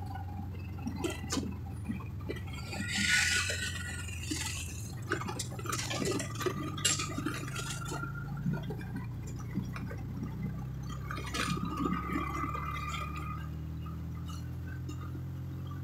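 Vehicle engine running steadily while driving, heard from inside the cabin, with scattered rattles, clinks and short squeaks from the interior as it rides over the road.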